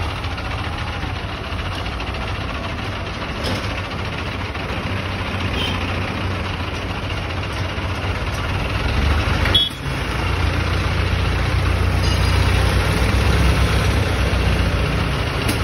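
Mobile crane's diesel engine running steadily under load while it hoists a heavy generator set on a sling. There is a short knock a little past halfway, after which the engine runs louder.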